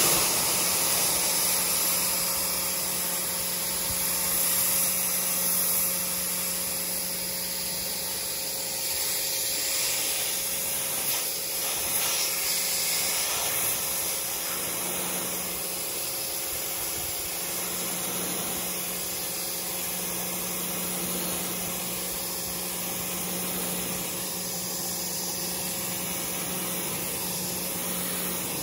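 Pressure washer spraying a steady high-pressure jet of water against a canoe hull: a continuous hiss of water with a steady low hum underneath.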